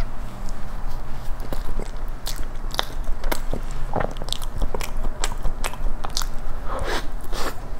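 Close-miked eating sounds of a person biting into and chewing a moist chocolate cake with chocolate cream topping: many small, sharp mouth clicks and smacks.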